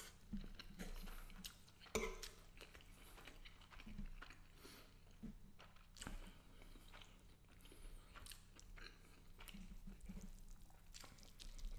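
A person chewing and eating shrimp and angel hair pasta close to the microphone: faint, wet mouth sounds with scattered soft clicks and smacks, one sharper click about two seconds in.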